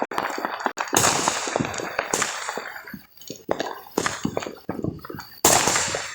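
Fireworks going off: a rapid crackling with four louder bangs that each fade away, the loudest near the end.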